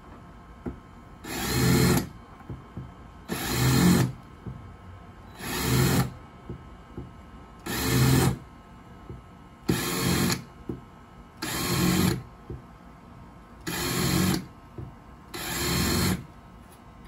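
A power drill spins up in eight short bursts, about one every two seconds. Each burst dimples a shallow marker dot into a metal cross tube without drilling through.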